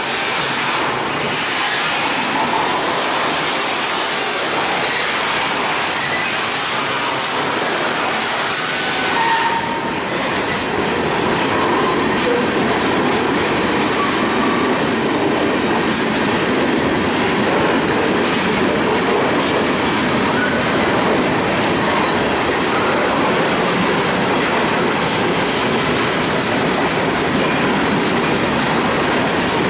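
Freight cars (boxcars and covered hoppers) rolling past close by: a steady rumble and clatter of steel wheels on the rails, with a few brief faint wheel squeals about a third of the way in.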